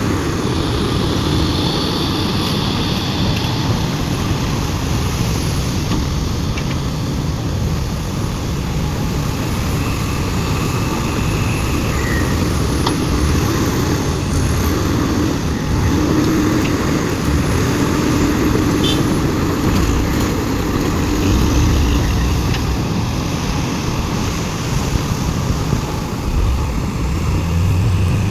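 Heavy diesel engines of a large excavator and dump truck running steadily while overburden is being loaded, a continuous low rumble with faint high whines coming and going.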